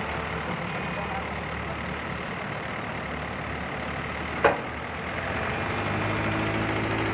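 Heavy diesel engines of an excavator and tractors running steadily, with one sharp clank about four and a half seconds in. Near the end the engine note grows a little louder and steadier.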